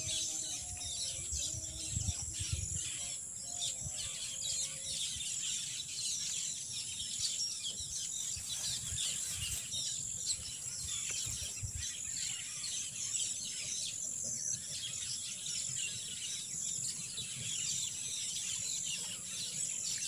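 Outdoor ambience of many birds chirping over a steady high-pitched insect buzz, with wind rumbling irregularly on the microphone.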